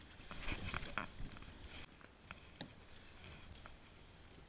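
Handling noises as a caught trout is brought in by hand and grabbed. About a second and a half of rustling and knocking starts just after the beginning, then scattered light taps and clicks follow.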